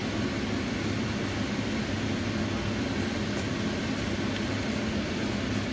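Steady whirring hum of a running fan, with a low drone underneath that holds unchanged throughout.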